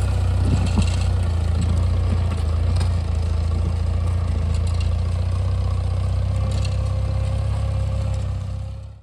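Engine of a farm machine working a garden plow, running steadily with a deep low hum and a little clatter about half a second to a second in. It cuts off suddenly at the end.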